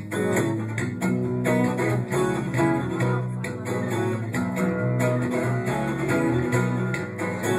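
Guitars playing a song's instrumental intro in a steady strummed rhythm, with no singing.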